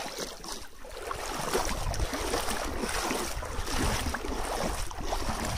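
Rushing noise of stream water, with wind rumbling on the microphone.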